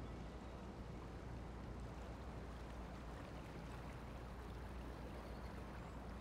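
Motor cruiser's engine running at low speed as the boat eases forward, a steady low hum.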